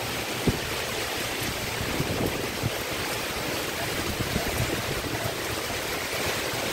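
Heavy typhoon rain pouring down and strong wind blowing hard, with the gusts rumbling roughly on the phone's microphone.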